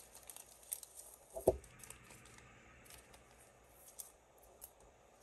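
Faint rustling and light clicks of trading cards and their packaging being handled, with one soft knock about a second and a half in.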